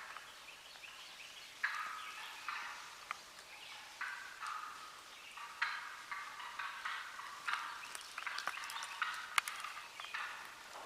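Wild turkeys gobbling, a rattling call repeated every second or two, with a few sharp clicks near the end.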